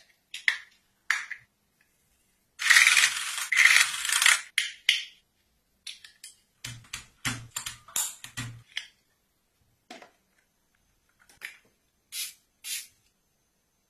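Handling sounds of a plastic electronics cleaning kit. First a few sharp plastic clicks and snaps as the case is opened and a tool pulled out, then about two seconds of loud scratchy noise. In the middle comes a quick run of clacks and thuds as a tool works over a mechanical keyboard. Near the end there are two short hisses from a small spray bottle misting a phone screen.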